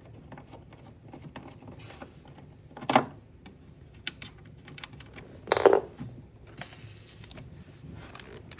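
Small clicks and light taps of screws and tools being handled during disassembly, with two louder knocks about three seconds and five and a half seconds in.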